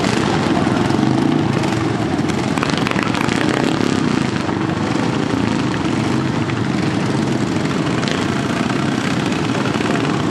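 Several racing riding lawnmower engines running hard together, a loud, steady engine noise with no break.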